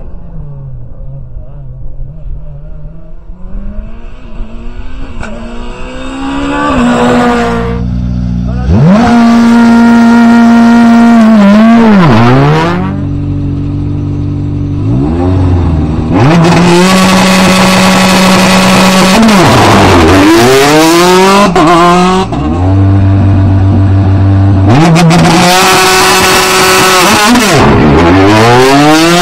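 Citroën DS3 rally car engines at full throttle. A distant car grows louder as it approaches, then cars are heard at close range revving at the stage start and accelerating away, the engine pitch holding steady, then climbing and dropping with each gear change.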